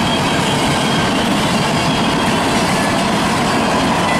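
Freight train covered hopper cars rolling past close by, a steady noise of steel wheels running on the rails.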